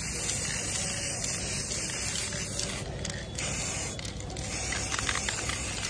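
Aerosol spray paint can hissing as black paint is sprayed onto metal clip-on handlebar clamps, with two brief pauses in the spray about three and four seconds in.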